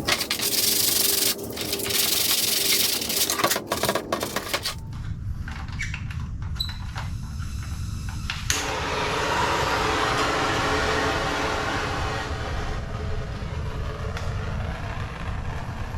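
Torch flame hissing while plastic zip ties are melted to drip into holes in a plastic sled. The hiss comes in choppy stretches for the first few seconds, drops back around five seconds in, and comes back steady about eight seconds in.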